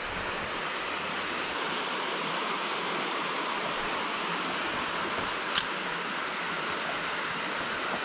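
Steady rush of water flowing down a concrete spillway channel, with one brief sharp tick about five and a half seconds in.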